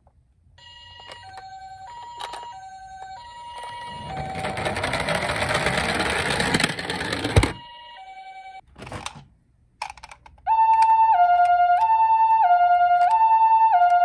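A battery-powered toy ambulance's electronic siren plays the Japanese two-tone 'pee-po' pattern, alternating between a higher and a lower note. It sounds faintly at first. After a few seconds of rushing noise that ends in a sharp click, it comes in loud and steady about ten seconds in.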